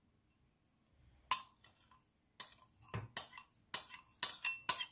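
A metal spoon knocking and scraping sugar out of a glass bowl: a series of sharp clinks of spoon on glass, about eight, coming closer together toward the end.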